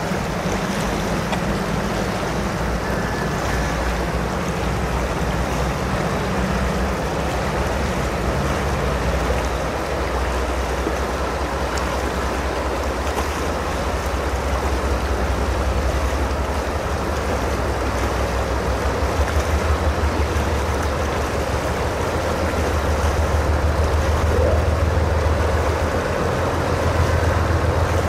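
Two GE AC4400CW diesel locomotives hauling a freight train across a steel trestle, a steady low engine drone that grows a little louder in the second half, over the steady rush of a river.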